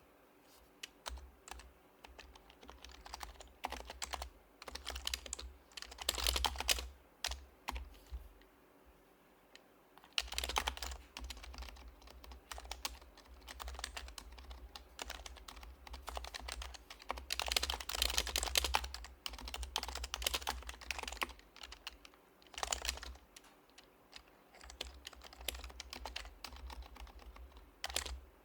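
Typing on a Happy Hacking Keyboard Professional HYBRID Type-S, its silenced Topre switches clacking softly in fast bursts of keystrokes broken by short pauses.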